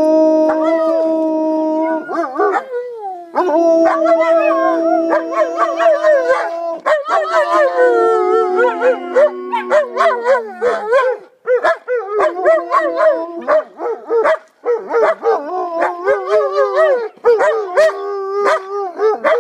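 German shepherd dogs howling together in several overlapping voices. The first half is long, steady howls; after that they break into shorter, wavering howls with brief gaps.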